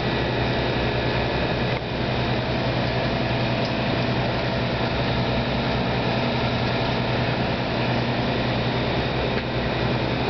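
A large engine idling steadily: an even, unbroken low drone with a hum.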